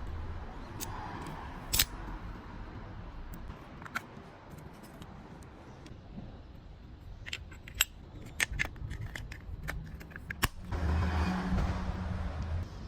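Sharp plastic-and-metal clicks and snaps of a toy gel blaster pistol being handled, with a quick cluster of clicks about seven to ten seconds in. A low steady buzz follows for about two seconds near the end.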